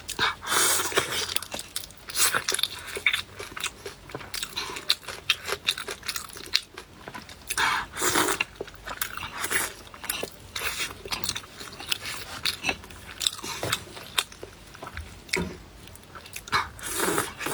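Close-up biting and chewing of crunchy food, with irregular crackling crunches.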